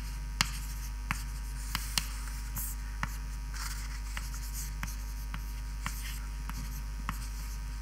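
Steady low mains hum under irregular light taps and a few short scratchy strokes of handwriting.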